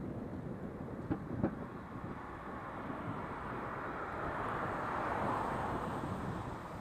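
Passing traffic on a wet road: a steady hiss of tyres that swells as a car goes by about four to five seconds in. Two short knocks come just after a second in.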